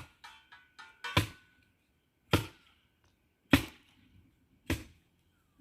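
A steady series of sharp knocks, one hit about every second and a bit, with near silence between them.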